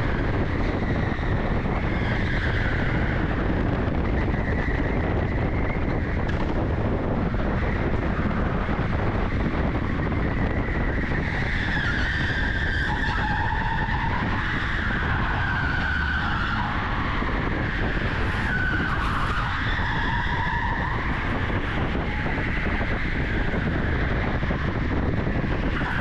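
Onboard sound of an electric go-kart at racing speed. A steady rumble of the kart runs throughout, with a wavering high whine that rises and falls through the corners.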